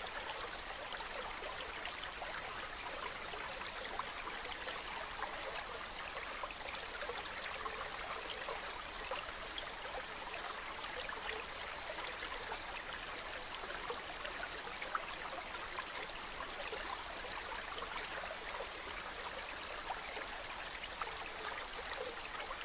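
Stream of running water, a steady babble with no change.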